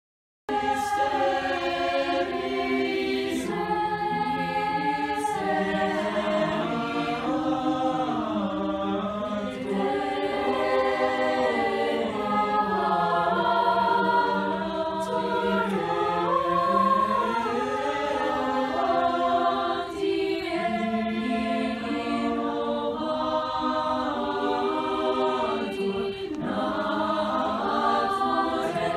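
High school mixed-voice choir singing together in several parts, starting abruptly about half a second in.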